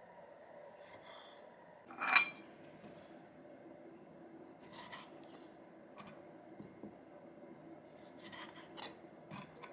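Kitchen utensils and dishes being handled. About two seconds in there is one sharp, ringing clink, followed by a few soft clicks and rubbing sounds.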